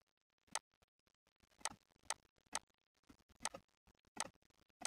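Computer mouse clicking: about seven sharp, faint single clicks at irregular intervals of half a second to a second.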